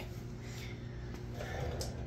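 Quiet workshop room tone: a steady low hum, with a faint soft shuffle about a second and a half in.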